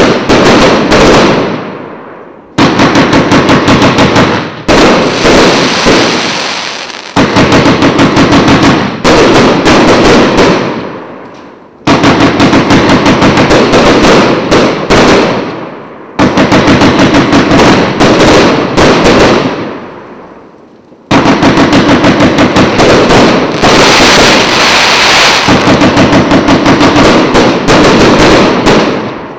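A 150-shot, 1.25-inch consumer fireworks cake firing: rapid runs of launches and shell bursts, several shots a second. They come in volleys of one to three seconds, each fading away before the next starts.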